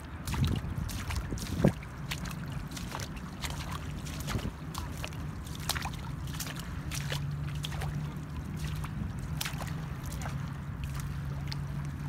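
Rocky tidal flat exposed at low tide: shallow water and wet reef with scattered sharp clicks and crackles, and one louder knock about two seconds in. A low steady hum joins about halfway through.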